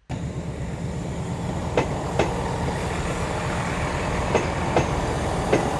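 A train rolling past with a steady rumble, its wheels clicking over rail joints, mostly in pairs: one pair about two seconds in, another past four seconds, and a single click near the end.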